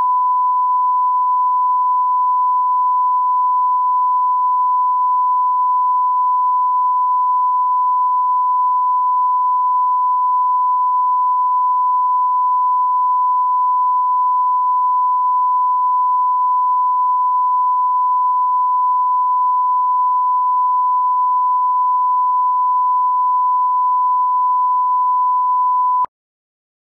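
Broadcast line-up test tone played with colour bars: a single steady 1 kHz sine tone that cuts off abruptly near the end.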